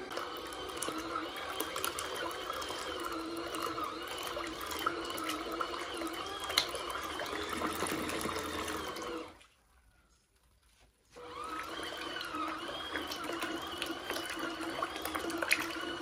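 Mini turbine washing machine churning water and small laundry in a bucket: water sloshing and swirling steadily over a faint motor hum. About nine seconds in, the sound drops out for nearly two seconds, then resumes.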